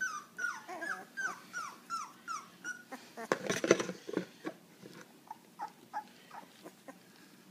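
Two-week-old puppy crying in a run of short, high, falling whimpers, about three a second. About three seconds in comes a brief clatter of handling as she is set into a plastic weighing bowl, and the whimpers go on fainter and sparser after it.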